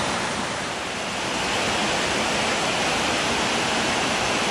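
Fast-flowing river rushing through white water: a steady, loud rush of water that grows a little brighter after about a second and a half.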